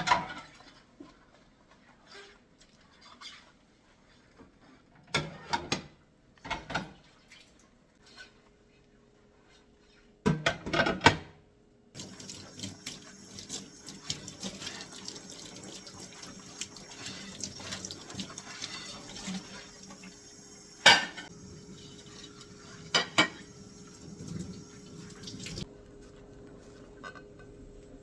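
Dishes and cutlery clinking and knocking in a few short bursts as they are handled. Then a kitchen tap runs for about fourteen seconds, with two sharp clinks of dishware while it runs, before it is turned off.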